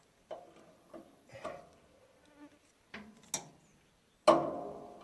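Metal parts of a baler's chain tensioner being worked by hand: scattered light clinks and knocks, then one loud metallic clank about four seconds in that rings on and fades.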